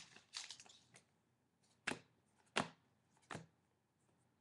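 Foil card-pack wrapper crinkling briefly, then three sharp taps about two-thirds of a second apart from a stack of trading cards being handled.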